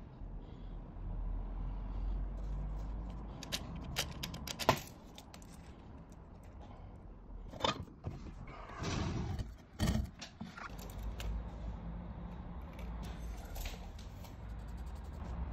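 Handling noise from work on a window frame: a few sharp clicks and knocks, the loudest about five seconds in and another near ten seconds, with a short rattle just before it, over a low steady rumble.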